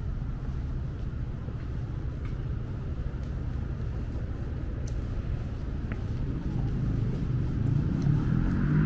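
City street traffic: a steady low rumble of road vehicles that grows louder near the end as a vehicle passes close by.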